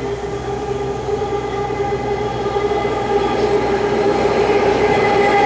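Six-car BART train approaching along the platform, its running noise growing steadily louder, with a steady two-tone whine.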